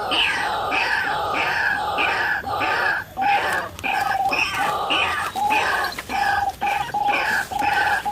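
White-breasted waterhen (ruak-ruak) calling over and over, loud croaking notes about two to three a second, with a brief break about three seconds in.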